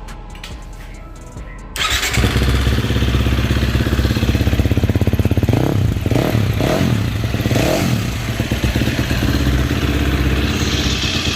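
KTM 350 SX-F single-cylinder four-stroke motocross engine, with a freshly rebuilt top end, coming to life about two seconds in after some music. It then runs loud and steady, blipped up and down a few times in the middle.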